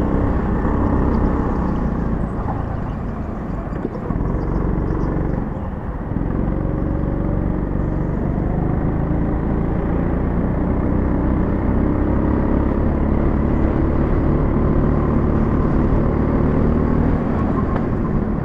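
Go-kart engine running hard through a lap, heard from the kart itself: the revs drop briefly about five seconds in, then climb again as it accelerates away.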